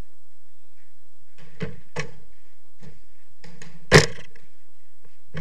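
A football being kicked and rebounding off the walls of an enclosed jorkyball court: a series of sharp thuds, the loudest about four seconds in.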